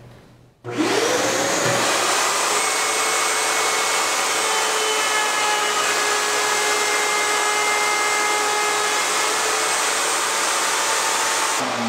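Shop vacuum dust collection and a table-mounted router switch on about a second in, with a whine rising as the motor spins up, then run steadily together as a loud rushing noise with a high whine while a scrap of wood is fed past the cove bit. The whine and the higher part of the noise drop away near the end.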